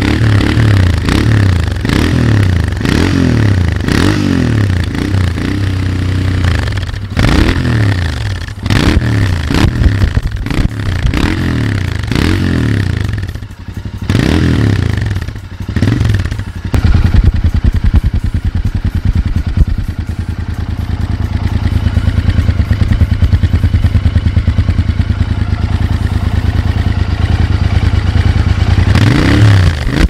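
Royal Enfield Interceptor 650's 648 cc parallel-twin engine heard through its stock chrome silencers. It is revved in a series of quick throttle blips, about one a second. Roughly halfway through it settles to a steady idle, and the revving picks up again near the end.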